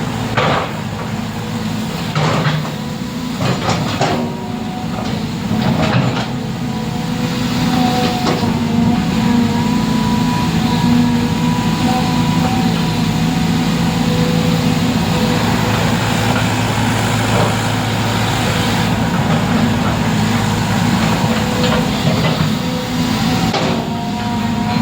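An engine running steadily with a low, even hum, with several sharp knocks in the first few seconds.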